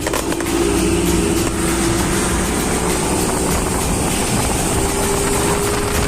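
A boat's outboard motor running steadily, with a constant tone under heavy wind and water rush.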